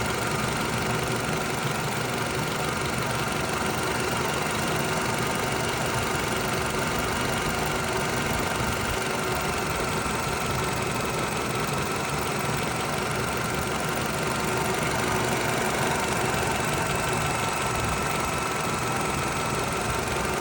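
2009 Toyota RAV4 engine idling steadily.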